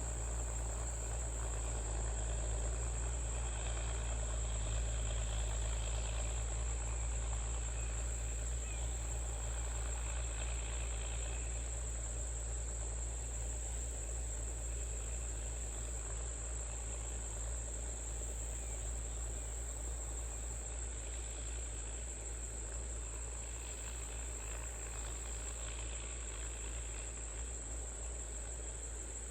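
Insects trilling in one continuous high-pitched note, over a steady low drone.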